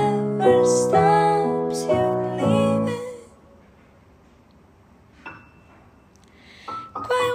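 A song with piano chords that fades out about three seconds in; after a short lull, another song starts near the end.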